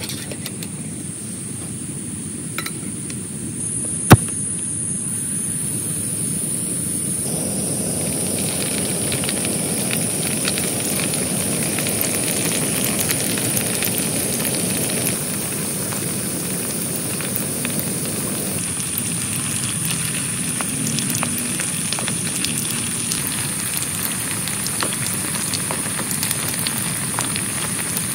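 Heavy rain falling on a tent, a dense crackling hiss that grows heavier about seven seconds in. A single sharp click sounds about four seconds in.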